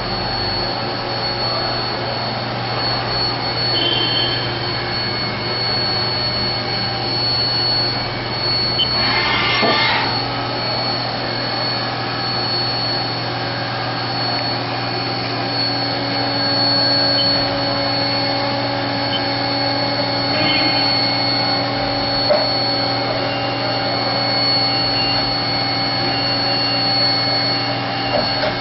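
2000 Haas VF-5 40-taper CNC vertical machining center running under power, its spindle and drives giving a steady high whine over a low hum. A brief rush of noise comes about nine seconds in.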